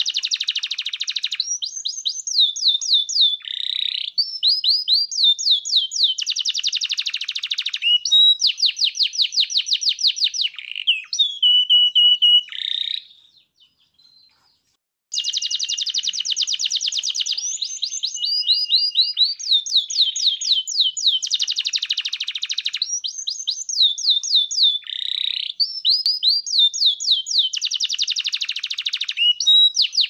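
Domestic canary singing a long song of fast rolling trills and whistled phrases, broken by a pause of about two seconds midway.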